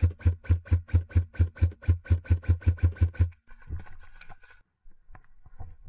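Airsoft rifle firing a rapid string of about fifteen shots, about four a second, which stops about three seconds in. After it come fainter rustling and a few light clicks.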